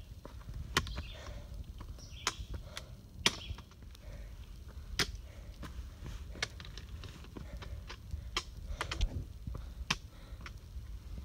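A hiker walking over a rocky trail: irregular sharp clicks and knocks, about one or two a second, over a low rumble.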